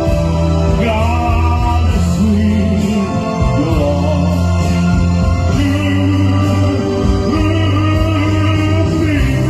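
Slow music with steady bass, held chords and a gliding melody line.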